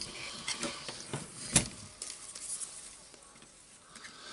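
Two screwdrivers scraping and clicking against the housing of a Hilti TE 706 demolition hammer as it is pried apart, with one sharp click about a second and a half in.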